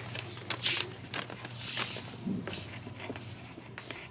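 Irregular footsteps and rustling over a steady low hum.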